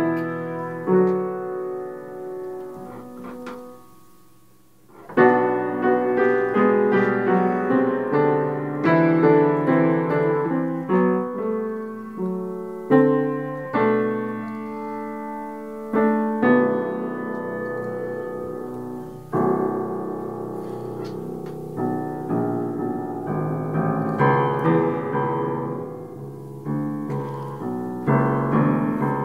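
Solo piano playing a slow piece of held chords under a melody, each note struck and left to ring away. About four seconds in the sound dies down almost to nothing, then a loud new chord comes in about a second later and the playing carries on.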